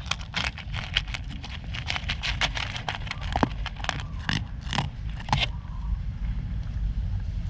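A pet chewing dry food in quick, crisp crunches, which thin out after about five and a half seconds, over a steady low rumble.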